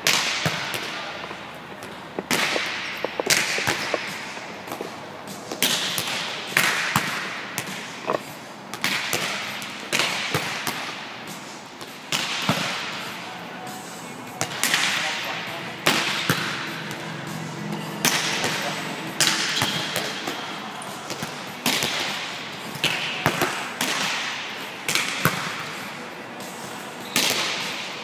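Volleyballs being hit and forearm-passed over and over in a passing drill: sharp slaps of hand and forearms on the ball, often in pairs about a second apart, with balls bouncing on the court floor, each hit echoing in a large hall.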